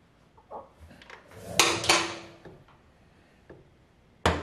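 Metal clanks from a steel motorcycle center stand being handled on its mounting bracket: a few light clicks, then two loud clanks a little before two seconds in that leave a short ringing tone, and one sharp knock near the end.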